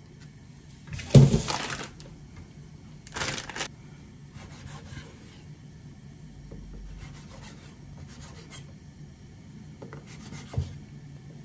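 Chef's knife slicing through thin fish cake sheets on a wooden cutting board: several short rasping strokes, the last ending in a knock of the blade on the board near the end. A louder knock with rustling comes about a second in.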